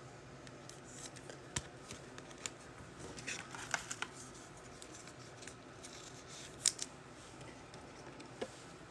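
Faint, scattered clicks and rustles of trading cards and their packaging being handled on a table, the sharpest one about two-thirds of the way through.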